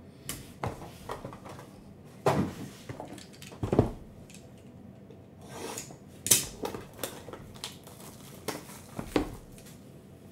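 A cardboard trading-card hobby box being handled and opened on a table: irregular knocks, taps and scrapes of cardboard, with a few louder knocks spread through.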